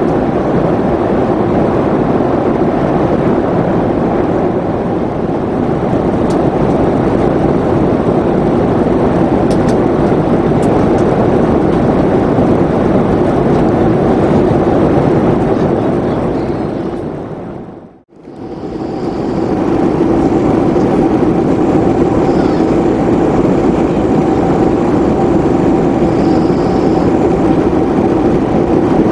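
Steady in-flight cabin noise of a Boeing 737-500: a dense rush of airflow and engine drone heard from a window seat. About two-thirds of the way through it fades away to nothing and swells back, now with a thin steady tone running through it.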